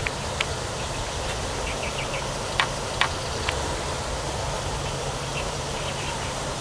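Steady outdoor hiss with a few sharp clicks and faint short chirps.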